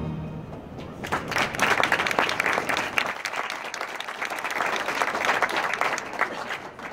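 Audience clapping after a children's choir song, starting about a second in as the last sung note dies away, and thinning out near the end.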